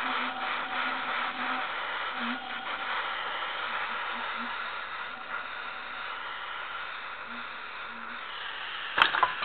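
Handheld gas torch burning with a steady hiss, followed by a few sharp knocks near the end.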